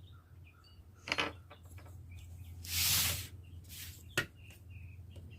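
Small parts of a stripped pistol frame being handled on the workbench: a sharp click about a second in, a short scraping rush near the middle, and another sharp click about four seconds in.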